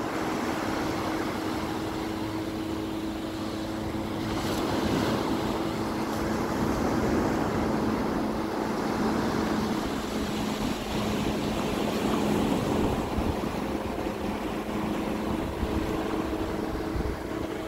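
Helicopter flying overhead, a steady drone holding two low pitches, over the wash of surf on the beach.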